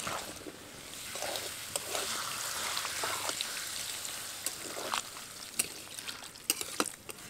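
Water being poured into a kadai of spiced elephant foot yam and potato pieces, a steady trickling pour, with a few sharp clicks. The water is added so the yam and potatoes can boil.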